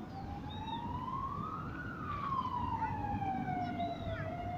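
A siren wailing: one slow rise in pitch for about two seconds, then a slow fall.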